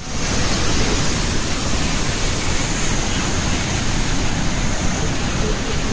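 Large waterfall pouring close by: a loud, steady rush of falling water that comes in right at the start.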